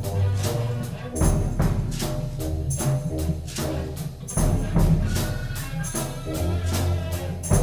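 Free experimental ensemble music: irregular struck percussion hits, some with a high jingling ring, over low held tones.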